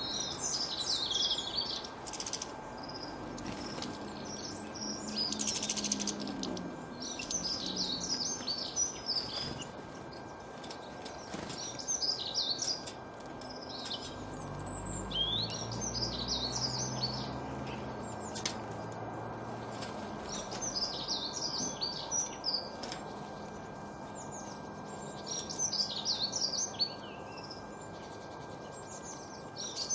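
A small garden songbird singing in short, high twittering phrases, one about every four seconds. A low rumble rises and fades in the middle.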